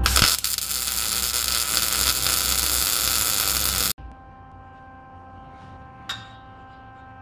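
A loud, steady hiss that cuts off suddenly about four seconds in, leaving a faint steady electrical hum.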